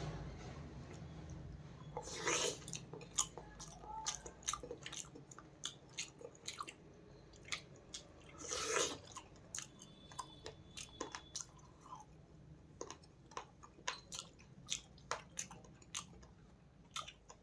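Close-up chewing and mouth sounds of a person eating fish and rice: many small wet clicks and smacks, with two louder, longer noisy bites or slurps, one about two seconds in and one about nine seconds in.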